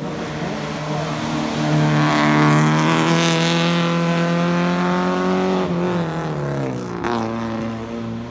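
Race car engine accelerating hard uphill, held at high revs with a strong steady note. Its pitch falls and climbs again about six seconds in, drops once more near seven seconds, and the engine fades as the car pulls away.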